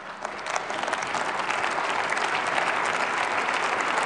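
A large seated audience applauding, many hands clapping at once; the applause swells over the first second and then holds steady.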